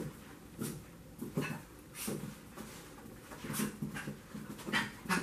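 Yorkshire terrier puppy making a string of short, excited whines. It is worked up at the sight of its owner's yoga mat.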